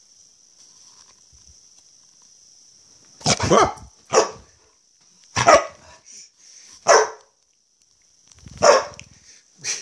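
Dog barking in play: about six loud, short barks, roughly one a second, starting some three seconds in.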